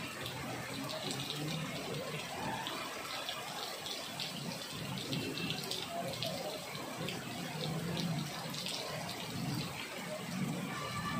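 Heavy rain pouring down steadily, with vehicles driving through the downpour on the wet road and faint engine hums coming and going.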